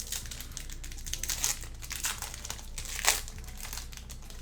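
Wrappers of 2022 Bowman baseball card packs being torn open and crinkled: a run of crackling rustles, the sharpest rip about three seconds in.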